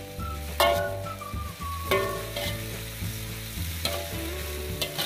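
Bean sprouts and chili sizzling in a wok as a metal spatula stirs and scrapes them, with a few sharp clinks of the spatula against the pan.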